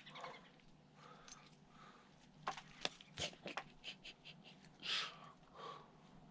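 Faint scattered crunches and clicks from puppies scuffling about, with a short breathy huff about five seconds in.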